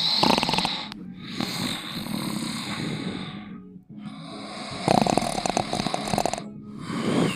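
A person snoring loudly in long, rattling snores, broken by brief pauses.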